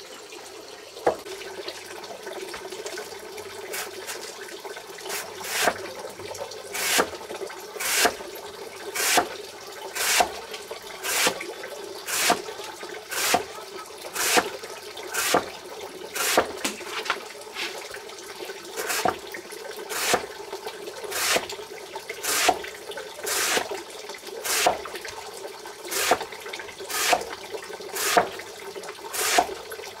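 Water running steadily, with a sharp swish or splash repeating about once a second from about four seconds in.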